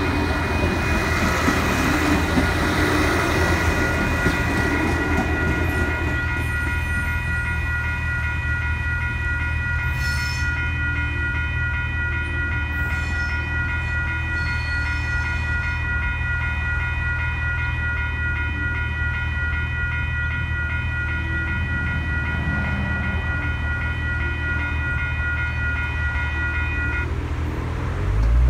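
Level crossing warning bells ringing continuously while an Adelaide Metro diesel railcar runs past in the first few seconds; the bells stop shortly before the end, and a car engine pulls away over the crossing.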